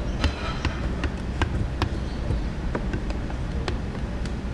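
Irregular sharp clicks and light taps, about two a second, from hands and tools working against the inside of a car windshield, over a steady low workshop hum.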